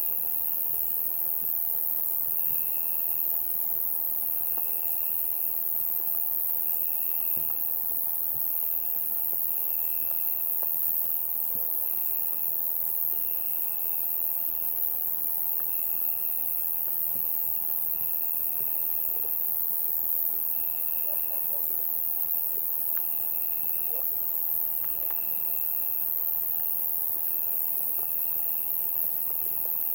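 Summer night chorus of crickets and other insects: a continuous very high-pitched shrill, with lower trills of about a second each repeating one after another.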